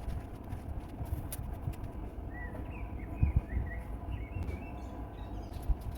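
A small bird chirping a short string of quick notes over a low steady rumble of outdoor background noise.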